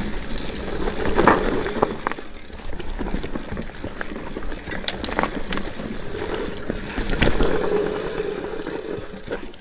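Orbea Rallon full-suspension mountain bike being ridden along a trail: tyres rolling over dirt, with frequent clicks and knocks from the chain and frame over bumps. The noise swells about a second in and again in the second half.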